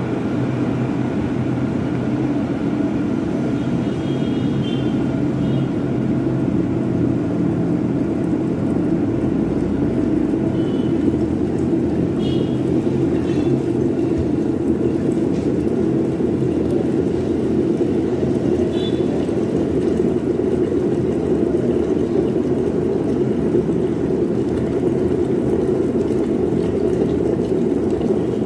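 Glass electric kettle at a full boil: a steady boiling noise. Its newly replaced automatic switch has not yet cut off.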